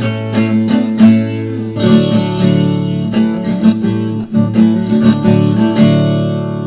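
Instrumental passage of a caipira song on viola caipira with acoustic guitar: plucked melody over strummed chords and a steady low bass, between sung verses.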